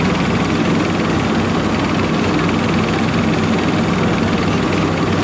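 Engine of a small tracked rice-hauling carrier idling steadily, an even low mechanical hum.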